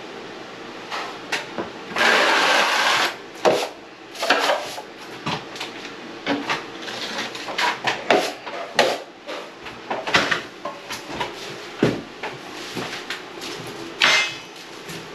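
Drywall knife scraping hot mud (setting-type joint compound) off the edge of a mud pan and spreading it over a ceiling crack: a run of short scrapes and clacks, with a longer scrape about two seconds in and another near the end.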